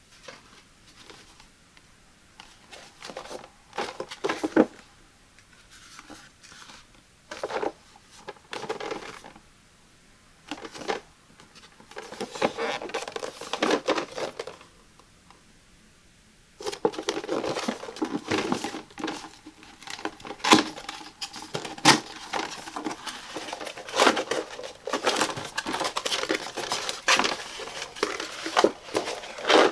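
Hands handling and opening a paperboard retail box: scattered taps and knocks of the box at first, then near-continuous rustling and scraping of cardboard as the flaps are opened and the plastic drying rack inside is handled.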